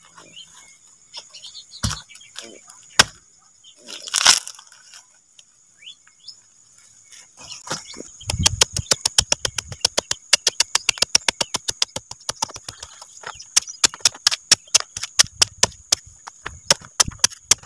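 Machete chopping into a banana corm. First come a few single strikes, then from about eight seconds in a fast run of short chops, several a second, as the corm is minced into small pieces.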